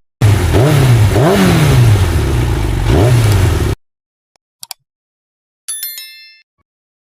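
Engine revving up and down three or four times over rough mechanical noise, cutting off abruptly. After a second of silence come two faint clicks and a short bright chime that fades away.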